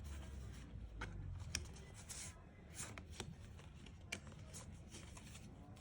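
Japanese Pokémon trading cards being handled and slid past one another, a faint scatter of soft clicks and swishes.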